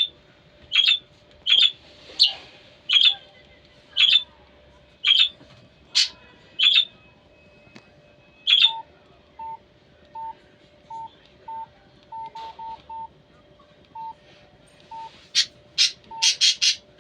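Alarm tones playing one after another: a bird-like chirp repeated about once a second, then short single-pitch beeps at uneven intervals, and a few quick high chirps near the end.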